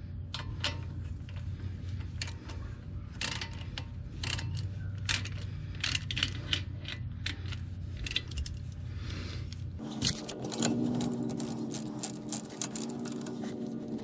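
Socket ratchet clicking in irregular runs with light metal taps as the front brake caliper bolts are threaded in and snugged down.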